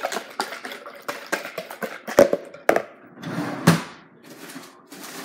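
Egg-and-cream French-toast batter being beaten in a plastic container, clicking quickly and regularly at about five strokes a second. After about two seconds the clicking gives way to two sharp knocks, then a louder thump as the container is knocked or set down.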